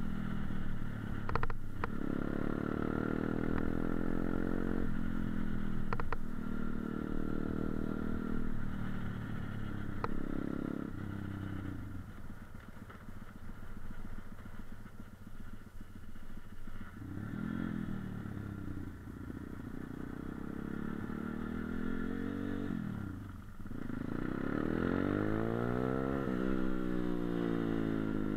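Motorcycle engine under way, revving up and easing off through the gears: the pitch climbs several times, with a quieter stretch of steadier running around the middle and a long climb near the end. A few sharp clicks in the first ten seconds.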